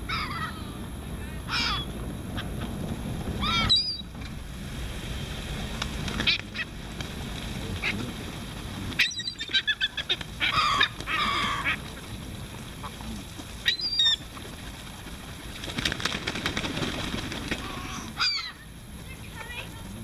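A flock of gulls calling over and over while mobbing a pile of popcorn, the calls crowding together in a quick run about halfway through. A low wind rumble lies underneath.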